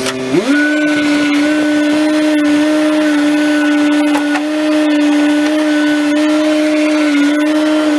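Bobcat track loader running under throttle with a steady whine. Its pitch rises quickly just after the start, then holds steady.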